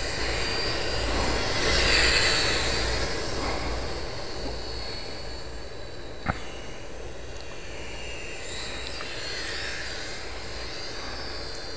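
Electric motor and propeller of a FlyZone Playmate micro RC park flyer whining in flight, growing louder about two seconds in with its pitch dipping as it goes by, then fading as it flies off. A single sharp click about six seconds in.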